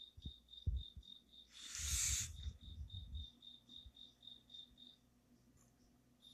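Cricket chirping steadily: a rapid high-pitched pulse about four times a second that sounds like an alarm clock beeping. It stops about five seconds in. A brief rush of noise about two seconds in is the loudest sound.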